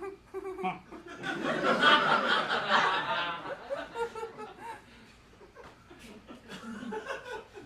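A group of people laughing at a joke. The laughter swells about a second in and dies away after about three seconds.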